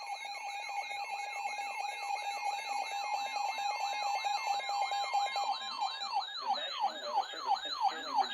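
Electronic alert alarm sounding: a rapidly repeating falling sweep, about three a second, over a steady tone that stops about five and a half seconds in, with a high warbling tone above.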